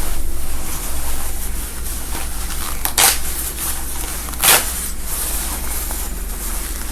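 A zipper and its stitching being torn out of a gown's fabric by hand: short ripping tears about three seconds in, again about a second and a half later, and near the end, over a steady low hum.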